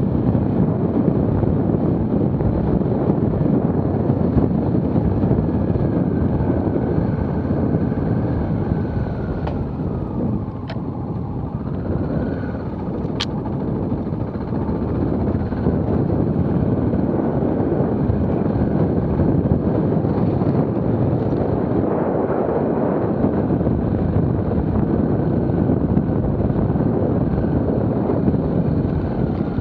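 Dual-sport motorcycle engine running under way at low speed, a steady rumble; the engine note dips about ten seconds in and picks up again.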